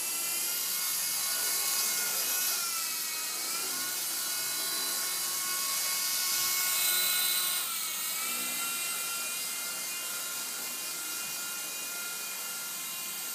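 Double Horse 4-channel single-rotor RC helicopter in flight: a steady high electric-motor whine with rotor hiss. Its pitch dips and recovers twice, about three seconds in and again about eight seconds in.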